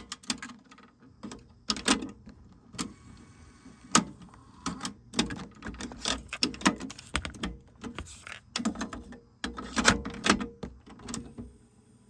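Plastic clicks and clatter of a TEAC W-350 cassette deck being handled: deck I's door ejects, a cassette is pulled out and pushed into deck II, the door snaps shut and the piano-key transport buttons are pressed. The clicks come in uneven clusters and stop about a second before the end.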